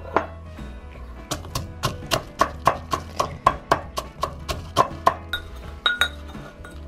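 Metal pestle pounding garlic cloves and salt in a metal mortar: a steady run of sharp knocks, about three to four a second, stopping about five seconds in.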